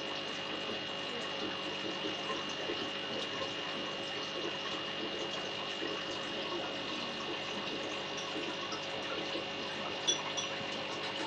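Aquarium filter running: a steady wash of moving, trickling water under a faint, steady high whine. A small click comes about ten seconds in.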